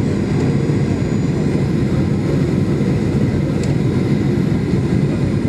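Steady engine and airflow noise heard inside a jet airliner's passenger cabin as it descends on approach to landing, a low, even rumble.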